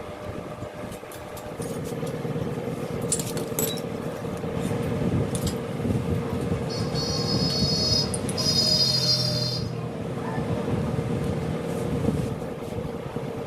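Yamaha R15's single-cylinder engine running steadily, with a few sharp clicks a few seconds in and a high whistling tone in two stretches around the middle.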